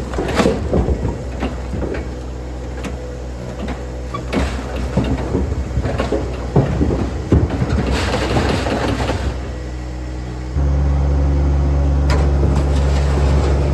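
An engine running steadily under repeated knocks and clatters of wood, typical of split firewood being handled and dropped. About ten and a half seconds in the engine gets markedly louder and stays that way.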